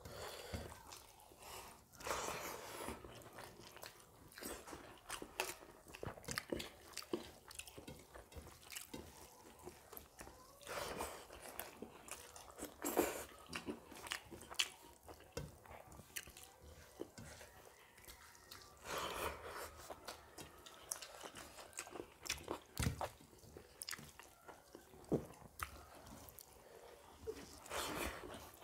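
Two people eating rice and fish pakoda curry with their hands: close, wet chewing and smacking mouth sounds with many small clicks, louder in a few short spells.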